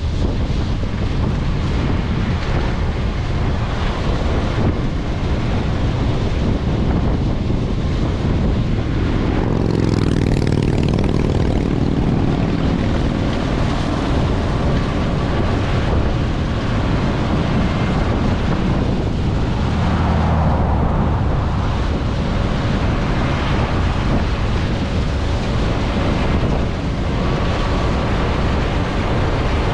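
John Deere 9600 combine harvester running steadily while harvesting soybeans, with wind buffeting the microphone. The machine's note swells louder about a third of the way in and again past the middle.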